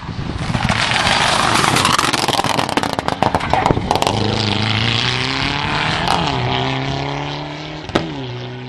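Rally car going past at speed: a loud rush of engine and tyre noise that peaks about three seconds in, then a steady engine note as it pulls away. The note dips and climbs again twice, and there is a sharp pop near the end.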